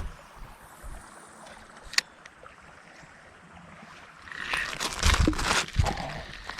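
Creek water splashing and sloshing over a couple of seconds near the end, after a single sharp click about two seconds in.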